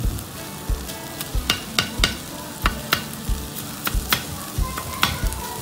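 Two metal spatulas chopping and turning a mound of shredded cabbage on a hot iron griddle. Sharp clacks of the blades striking the plate come irregularly, about two a second, over steady sizzling.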